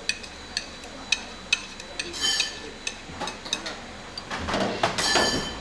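Wooden chopsticks and ceramic tableware clinking: a series of sharp, ringing clicks. A louder, noisier stretch of clatter comes near the end.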